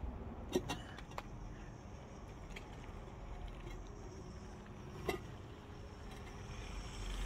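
Battery-powered pipe inspection crawler driving on pneumatic tyres over a rusty metal plate: a low, steady hum from its drive, with a few sharp knocks as the tyres ride over the plate, the loudest about half a second in and again about five seconds in.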